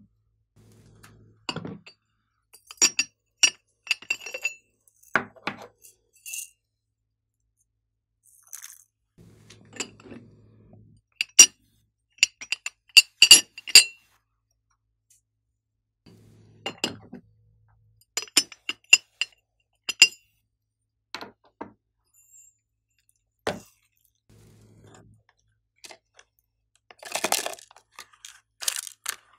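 Sharp clinks and clicks of containers and sequins against a glass baking dish, in scattered clusters, some with a brief glassy ring. Near the end a longer rustle as a plastic clay box is opened.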